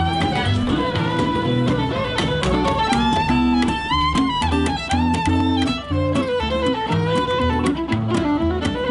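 Instrumental break in a folk song: a violin plays the melody over a rhythmically strummed guitar.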